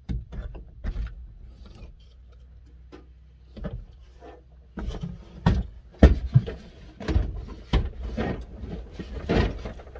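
Clicks and knocks of a pickup camper shell's side window being unlatched and swung open, then a run of louder knocks and rubbing as things are handled in the carpeted truck bed.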